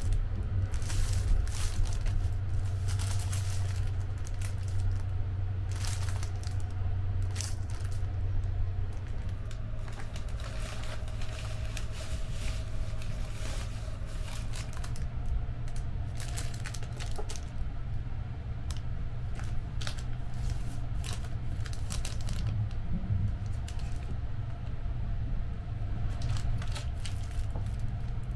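Clear plastic wrappers and amenity packets crinkling and rustling as they are handled, in many short, uneven crackles. A steady low rumble of the sleeper train running lies underneath.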